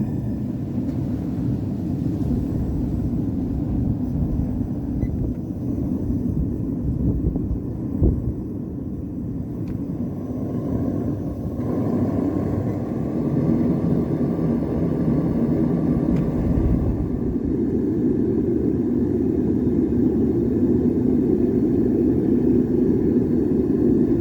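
Gas-fired foundry furnace running, its propane burner giving a steady low rumbling roar while it heats the crucible. A single sharp knock comes about eight seconds in.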